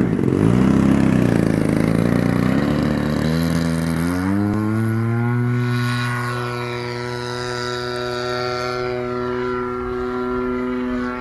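DLE-35 single-cylinder two-stroke gasoline engine on a radio-controlled model plane, running unevenly at low throttle, then opening up over a couple of seconds to a steady high-speed run for takeoff and climb-out. It grows a little fainter as the plane flies away.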